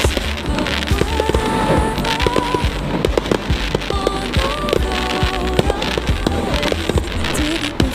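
Fireworks bursting in quick succession, many sharp bangs and crackles, over loud music with a held melody.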